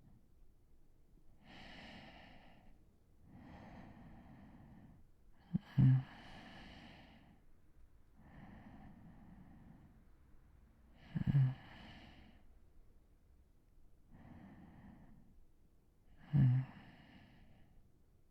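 A sleeping man's slow, steady breathing, with a short, loud, low snore three times, about five seconds apart.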